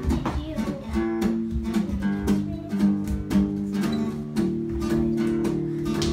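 Acoustic guitar strummed in a steady rhythm, chords ringing and changing a couple of times.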